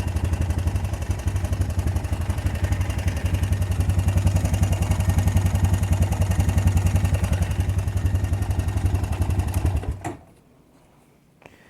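2005 Honda Recon ATV's single-cylinder engine idling with an even, rapid exhaust pulse and some clatter, which the owner puts down to a worn timing chain and oil pump chain that need replacing. It shuts off about ten seconds in, followed by a faint click.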